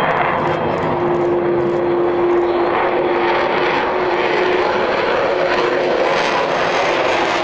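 Avro Vulcan XH558's four Rolls-Royce Olympus turbojets running loud as the delta-wing bomber climbs steeply overhead, a steady tone held through most of the jet noise and weakening near the end.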